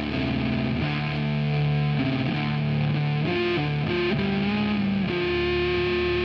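Rock music with distorted electric guitar playing held notes.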